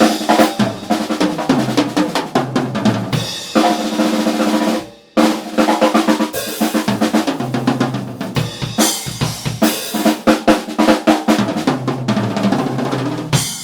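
Ludwig LM405K 6.5x14 hammered Acrolite aluminium-shell snare drum played on a drum kit in quick strokes and rolls, with rimshots, over bass drum and hi-hat. The playing stops briefly about five seconds in, then picks up again.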